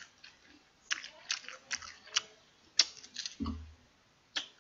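Salt-grilled king prawn shells crackling and crunching as they are peeled by hand and eaten: a string of short, sharp clicks about every half second, with one dull thump about three and a half seconds in.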